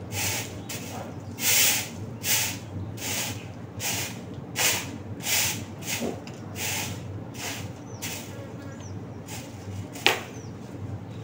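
Broom sweeping a yard in regular swishing strokes, about three every two seconds, growing fainter after about eight seconds. A single sharp knock near the end.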